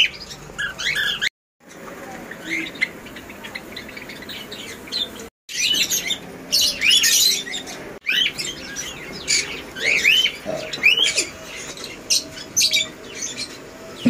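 Caged pet birds in an aviary, cockatiels and budgies among them, chirping and calling in many short rising and falling chirps. The sound cuts out briefly twice.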